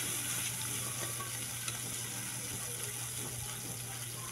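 Sautéed mung beans, garlic and onion sizzling steadily in a wok over a wood fire while a metal ladle stirs them, with a faint click or two from the ladle.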